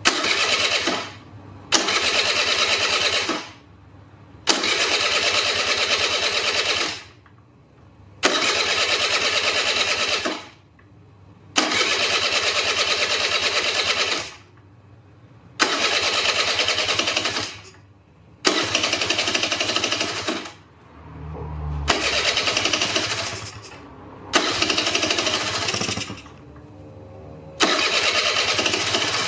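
Honda Super Dio's 50 cc two-stroke engine being cranked by its electric starter in about ten bursts of one to two seconds each, short pauses between them, without catching. The cranking is drawing fuel into the freshly overhauled, dry carburettor.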